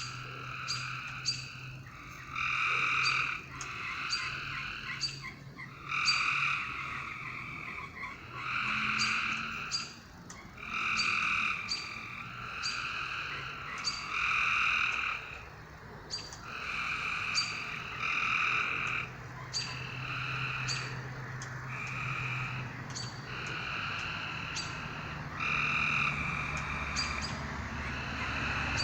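Frogs calling at night: a chorus of repeated calls about a second long, one after another every second or two, mixed with short sharp clicks.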